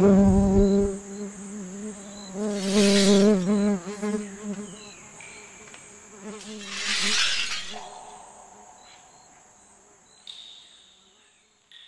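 Layered insect soundscape: a steady high cricket-like trill, with a loud buzz of wavering pitch that starts abruptly and fades out over about five seconds. Two swelling hissy rushes come about three and seven seconds in, over short high chirps, and two sharp falling pings come near the end.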